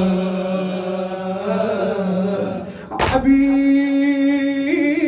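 A male reciter chanting a Shia lament in long drawn-out sung notes, first a low held note and then a higher one that wavers near the end. A single heavy thump comes about three seconds in.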